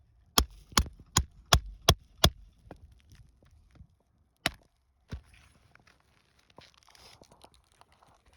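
A hammer strikes a metal nail-removal tool under asphalt shingles to work roofing nails loose: six sharp ringing blows at about three a second, then two single blows, then a faint scraping rustle.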